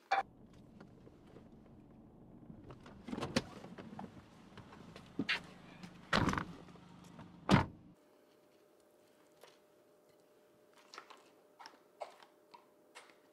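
Car doors opening and shutting inside a car with a low hum, a series of heavy thumps, the last and loudest like a door slammed. It then drops abruptly to quiet, with light clicks of a metal fork against a plastic container and a plate.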